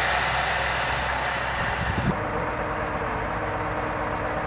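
Heavy machinery engines running steadily. For about the first two seconds a loud, even hiss lies over the low engine hum and then cuts off suddenly, leaving a steady lower idle with a constant hum.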